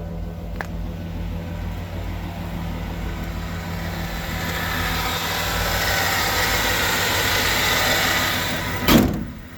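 Chevrolet Vortec 350 V8 idling steadily through dual exhaust, with a rushing hiss that builds over several seconds. A single loud thump near the end cuts the sound down sharply.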